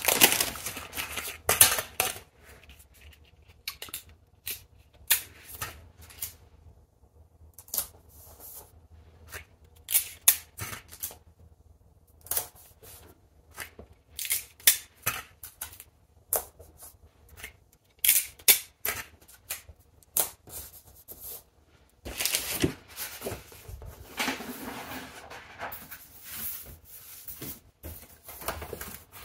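Hands handling picture-frame parts: scattered short clicks, taps and crinkles of plastic and paper, then a longer stretch of cardboard rubbing and scraping as the frame's cardboard backing is handled near the end.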